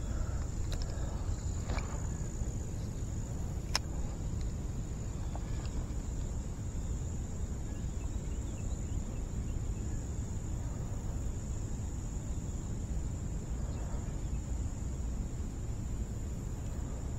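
Steady high-pitched drone of insects over a low rumble, with a few faint clicks in the first few seconds, the sharpest about four seconds in.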